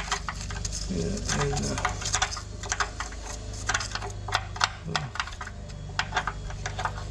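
Metal paint can opener scraping and picking crumbled foam insulation out of a water heater's anode rod port: a quick, irregular run of sharp scratches and clicks, over a steady low hum.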